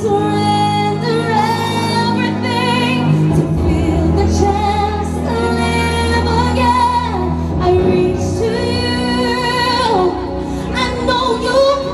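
A woman singing into a handheld microphone over backing music, her held notes wavering with vibrato.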